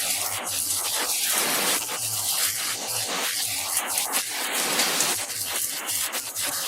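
Heavy rain falling, a dense steady hiss with irregular spatters.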